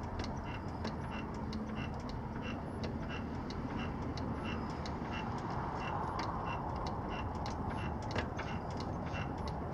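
Steady, evenly spaced ticking, about one and a half ticks a second, over a constant background hiss.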